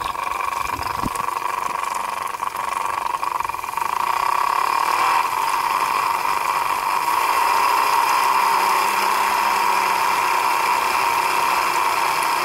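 Small 3D-printed Pelton water turbine spinning on a garden-hose jet, with a stepper motor as its generator: a steady high whine over the hiss and splash of spraying water, growing louder about four seconds in.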